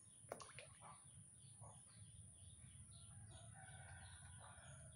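Near silence with faint, repeated bird chirps and a brief click about a third of a second in.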